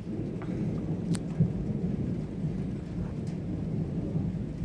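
Thunder rumbling low and continuous during a thunderstorm, with rain falling and a few sharp ticks of drops.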